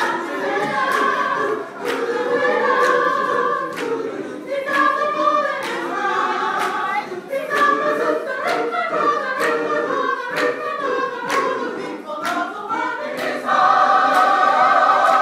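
Mixed gospel choir singing in full harmony, with a sharp hit marking the beat roughly every three-quarters of a second. Near the end the choir swells into a loud held chord.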